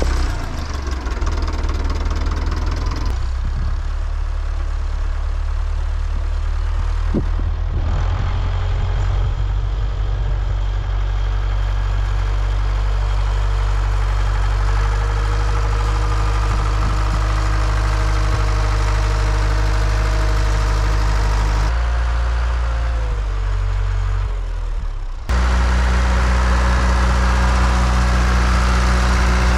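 Farm tractor engine running steadily, its block heater having let it start in the cold. The engine note shifts a few times and gets suddenly louder near the end.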